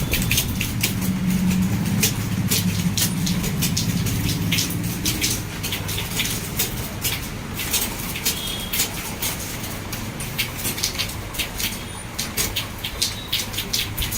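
Fast touch-typing on a computer keyboard: rapid, irregular key clicks, several a second, over a low background hum that is stronger in the first few seconds.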